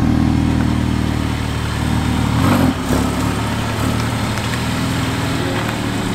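Car engine running at low revs as a white Mercedes A-Class hatchback rolls slowly toward and past, with a brief dip and change in the note about halfway through.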